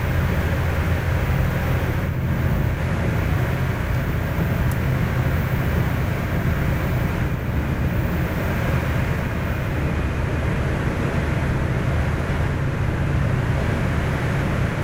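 Tosa Kuroshio Railway 9640-series diesel railcar running steadily through a long tunnel: a constant low engine drone with wheel and rail noise, heard from inside the car.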